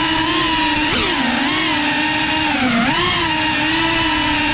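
GEPRC Cinelog cinewhoop FPV drone's motors and ducted propellers whining. The pitch dips and rises together with throttle changes, falling twice and climbing back.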